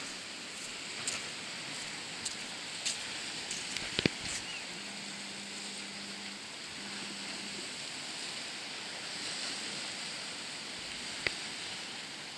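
Seaside ambience: a steady wash of small waves breaking on a rocky shore, mixed with breeze. A few sharp clicks cut through, the loudest about four seconds in, and a faint low hum comes twice in the middle.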